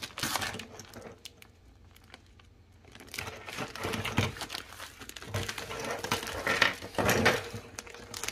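Plastic packaging wrap crinkling as it is snipped with scissors and pulled open. There is a quieter lull about a second in, then denser, louder crinkling from about three seconds on.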